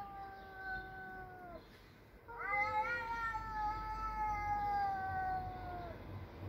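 Cat yowling in long, drawn-out wails, typical of two cats facing off. One wail ends about a second and a half in, and a longer one starts a little after two seconds. Each slides slowly down in pitch.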